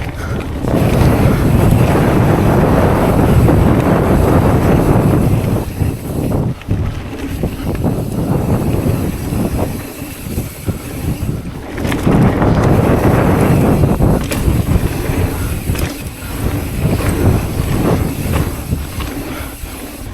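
Wind buffeting a chest-mounted camera microphone while riding a mountain bike, a loud low rumble that surges and eases in waves, with a few sharp knocks from the bike.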